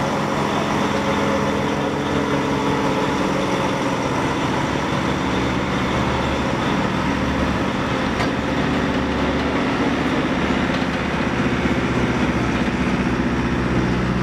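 Diesel engine of a heavy-haulage transport rig running steadily as the oversize load passes close by, with a slight change in engine pitch near the end.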